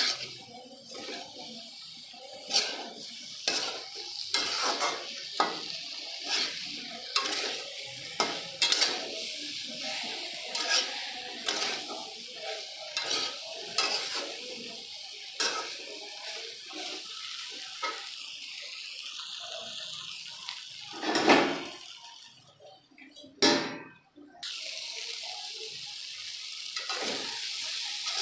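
Metal spatula scraping and clacking against a metal kadhai as spiced cauliflower and potato pieces are stirred, over a steady sizzle of frying. The strokes come about once or twice a second; after a brief break about three quarters of the way through, the sizzle is steadier and louder, with fewer scrapes.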